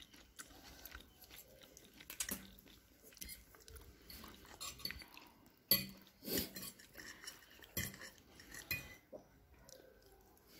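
Quiet eating: a fork clinking and scraping on a glazed ceramic plate of pasta, with soft chewing. Scattered sharp clinks, the loudest a little past the middle.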